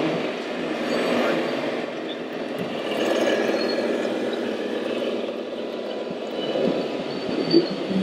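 Steady mechanical running noise of radio-controlled scale trucks and machines working in a large hall, with faint high whines from their drives and one short knock near the end.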